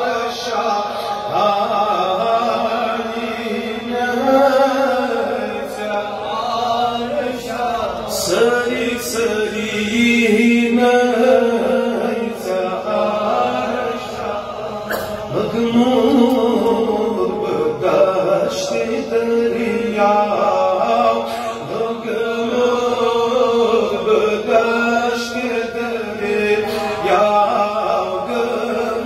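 A man singing a naat, a devotional chant in praise of the Prophet, solo into a microphone, with long held notes and gliding, wavering runs.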